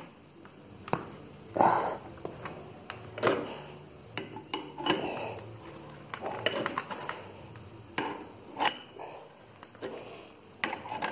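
Irregular metallic clinks and knocks, several sharp strokes a few seconds apart, from a bearing puller and hand tools being worked to draw a seized ball bearing off a water pump's shaft.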